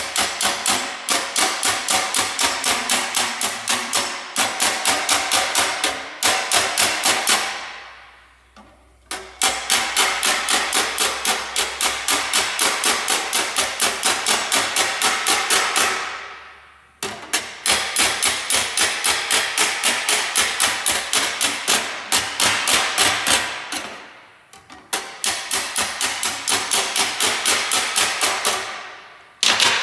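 Body hammer striking a welded sheet-metal panel against a steel dolly held behind it: quick, even metallic taps, about five a second, in runs of several seconds broken by three short pauses, each run ringing off as it stops. This is planishing, hammering the weld seam smooth so the panel needs no body filler.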